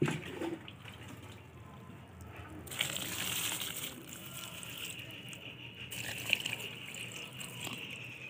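Water poured from a metal pot onto dry garlic and onion peels in a plastic tub, splashing as the stream lands. The pour starts about three seconds in, is fullest for a few seconds, then eases off near the end.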